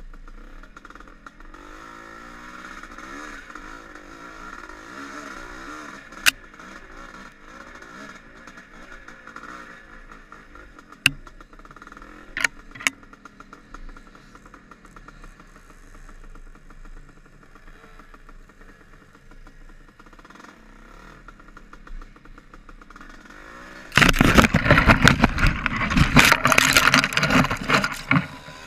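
Dirt bike engine running along a trail, its pitch rising and falling, with a few sharp clicks. About four seconds before the end comes a loud burst of scraping and clattering as branches rake the helmet-mounted camera while the bike pushes through brush.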